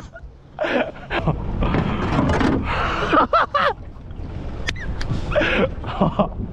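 Excited gasps and short breathless exclamations, in several bursts, over a steady low rumble of wind and sea.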